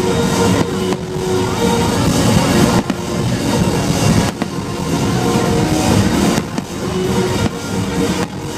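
Loud music over a festival sound system, with fireworks going off over it in a few sharp bangs.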